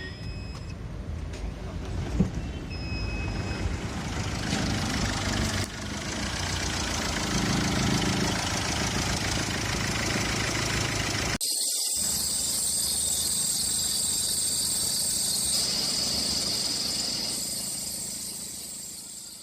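Car engine running with its fan belt turning. The sound breaks off abruptly about eleven seconds in, resumes with a high-pitched sound added, and fades out near the end.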